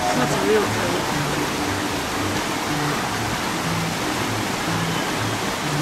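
Steady rush of running water from a wooden water wheel lifting bamboo buckets, with faint music of short low notes underneath.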